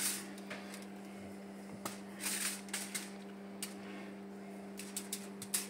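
Scattered light clicks and short crinkling rustles of hands handling marinated pork ribs, over a steady low hum.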